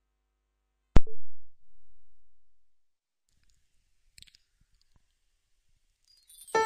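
Gap between two songs in a forró music mix. A single sharp click about a second in fades away, leaving near silence, and the next song's music begins near the end.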